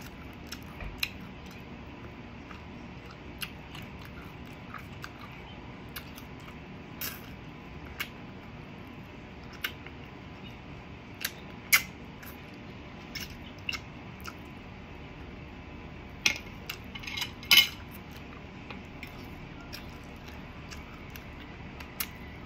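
Cutlery clinking against a plate now and then while eating, with a quick run of several clinks about three-quarters of the way in, over a steady low background hum.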